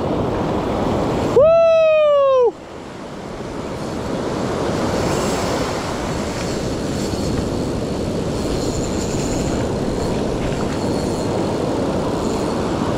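Ocean surf washing and rumbling steadily, with wind buffeting the microphone. About a second in, one loud, drawn-out high cry sounds for about a second, falling slightly in pitch, and cuts off suddenly.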